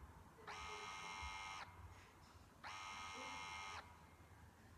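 Electric siren sounding in long, even buzzing blasts, each about a second long with a one-second gap between: two blasts, the first starting about half a second in.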